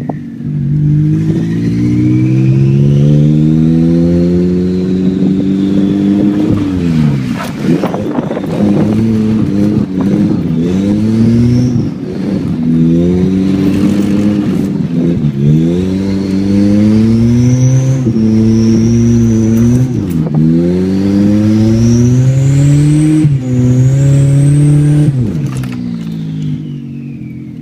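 Car engine heard from inside the cabin, revved hard again and again: the revs climb steadily, then drop sharply, five times over, with a high whine rising along with the revs.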